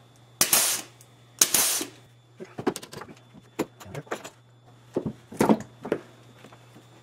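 Hand grease gun greasing a PTO driveline yoke's grease nipple: two short hissing strokes about a second apart, then scattered clicks and knocks as the gun's coupler and the metal yoke are handled on the bench.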